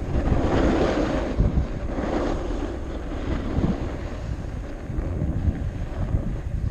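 Strong wind buffeting the microphone: a gusty low rumble with rushing noise, strongest in the first few seconds and easing somewhat after.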